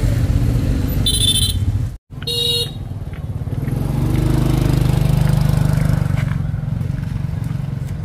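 Motorbike engines running on a busy street, one coming close so that the hum swells in the middle and then eases off. Two short horn beeps sound about one and two and a half seconds in.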